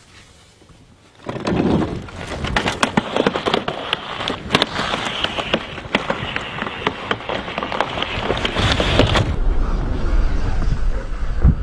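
Wheelchair rolling fast down a ramp: a dense rattling crackle of wheels and frame running over the surface, mixed with wind rush. It starts suddenly about a second in, and a heavier low rumble of wind builds near the end.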